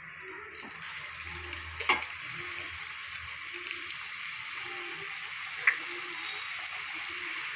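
Coated veg nargisi koftas deep-frying in hot oil in a kadhai: a steady high sizzling hiss that starts about half a second in as the balls go into the oil, dotted with small crackles and one sharper pop near two seconds.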